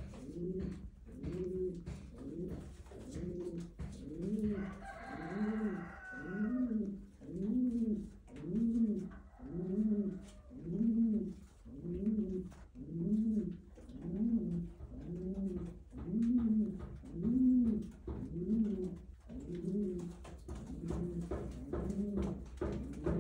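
Domestic pigeons cooing inside their loft: a steady, rhythmic run of low coos, a little more than one a second, with a brief higher-pitched call about five seconds in.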